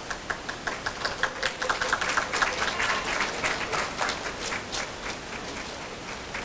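Audience clapping: a few scattered claps that quickly build into applause, then thin out and die away near the end.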